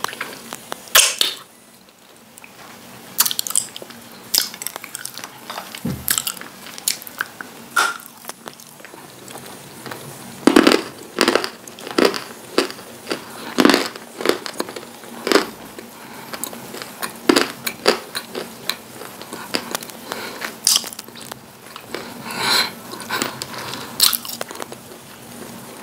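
Lumps of dry white edible clay being bitten and chewed: many short crunches at uneven intervals.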